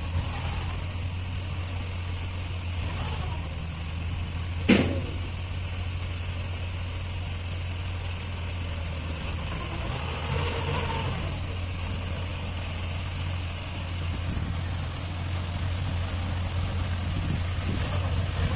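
Diesel engine running steadily with a low, even hum, with one sharp knock about five seconds in.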